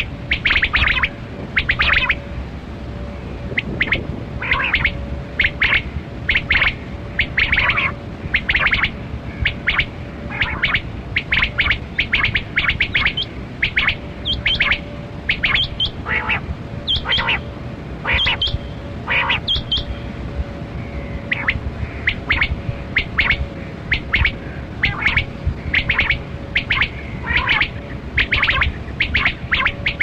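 Rain quail (kali kirak batera) calling: short, sharp calls repeated a couple of times a second, often in pairs, with a brief pause about two-thirds through. A faint steady hum runs underneath.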